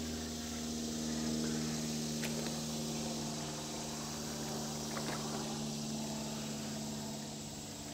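A steady mechanical hum holding several even tones without change, with faint splashing and a few small ticks as boots wade through shallow creek water over gravel.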